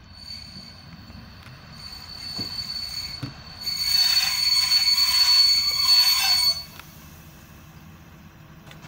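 Swedish-built HŽPP 7122 series diesel railcar braking to a stop, with a high-pitched brake squeal. The squeal builds, is loudest for about three seconds from about three and a half seconds in, and cuts off suddenly as the railcar halts. After that, its diesel engine idles with a low steady hum.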